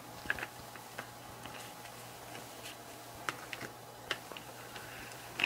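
Light, scattered clicks and taps of glossy photo cards and a cardboard album box being handled, a dozen or so irregular ticks with a faint steady hum underneath.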